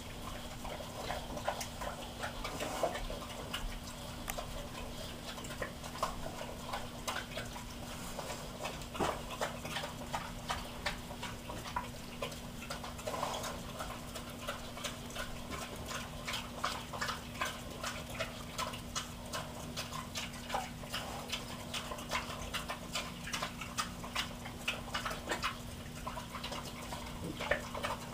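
Two pot-bellied pigs chewing and smacking on fried clams from metal bowls: a run of quick, irregular wet clicks and crunches, with a steady low hum underneath.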